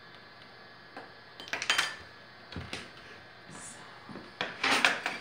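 Kitchen things being handled and set down: short clinks and knocks of utensils and containers, starting after about a second and a half and bunching up near the end.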